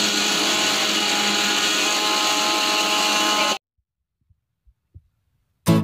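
Electric mixer grinder running at full speed, its steel jar grinding crushed Oreo biscuits into powder with a loud, steady whir. It cuts off abruptly after about three and a half seconds, and a guitar strum begins near the end.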